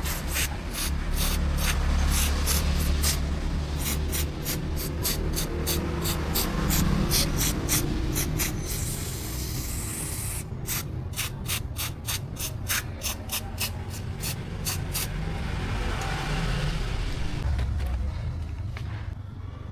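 Hiss of a spray or air jet in bursts over a steady low hum, with a run of sharp clicks at about two to three a second that stops about three-quarters of the way through.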